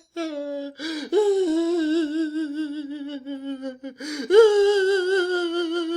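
A man crying: long, quavering wails that slowly sink in pitch. Each wail follows a sharp gasping breath in, the first about a second in and the second about four seconds in.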